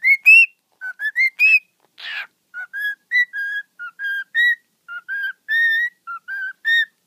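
Lutino cockatiel whistling a run of short, clear notes, about three a second, many of them rising at the end. There is a brief rasping sound about two seconds in.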